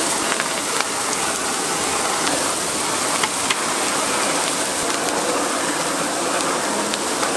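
A handheld gas blowtorch hissing steadily as it flame-sears skewers on a hot griddle, with the griddle sizzling under it. A few faint clicks sound through the hiss.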